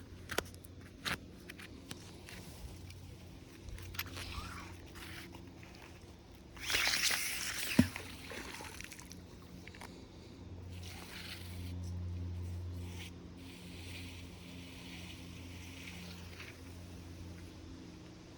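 Water sloshing and splashing with scattered clicks and knocks from handling gear; the loudest part is a rushing splash about seven seconds in that ends in a sharp knock, over a steady low hum.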